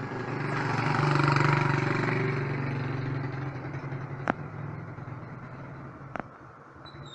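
A motor vehicle's engine passing by, growing louder for about a second and a half, then fading away. Two sharp clicks come later, about two seconds apart.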